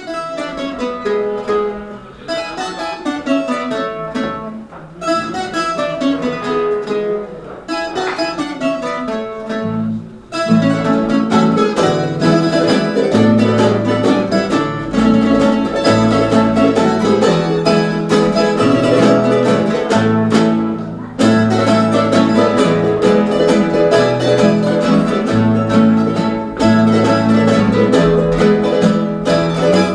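A folk string ensemble of guitars and other plucked strings plays an instrumental passage. The first ten seconds or so are light and sparse. Then the full group comes in louder, with a strong bass line under the strumming.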